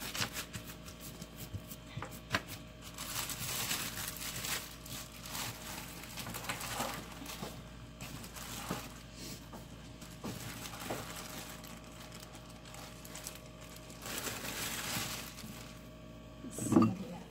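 Plastic film crinkling and rustling in bouts as it is handled under and around a flattened sheet of bulgur kubba dough, with light clicks and knocks. A brief loud voice sound comes near the end.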